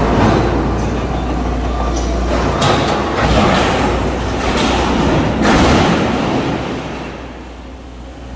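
Komatsu hydraulic excavator tearing down a sheet-steel hopper: scraping and grinding sheet metal with several loud metal crashes and bangs over the first six seconds, over the low hum of the diesel engine, then growing quieter near the end.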